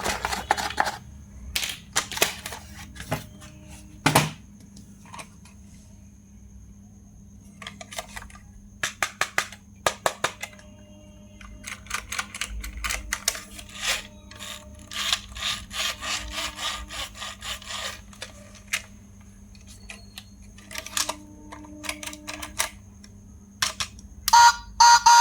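Clicks, snaps and rustling of plastic being handled, in irregular bursts over a faint steady hum.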